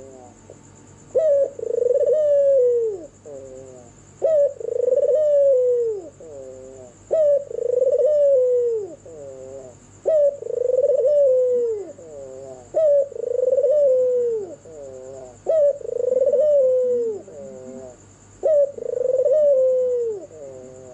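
Barbary dove (white puter) cooing over and over. Each call is a short note followed by a long coo that falls in pitch, repeated about every three seconds, seven times.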